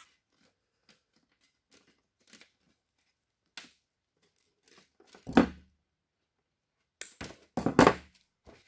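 Hand wire cutters snipping through automotive harness wires to trim them to even length, with light rustling and clicking as the wires are handled. One sharp cut comes about five seconds in, then a quick run of cuts a couple of seconds later.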